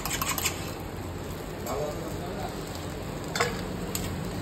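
A spoon beating eggs in a small metal tin, a quick run of clinks about eight a second that stops about half a second in. Then a steady sizzle of omelettes frying on a large flat griddle, with one sharp click about three and a half seconds in.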